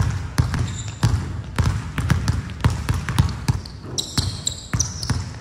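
Basketball dribbled hard and fast on a hardwood court, about three bounces a second. Short high sneaker squeaks come in near the end.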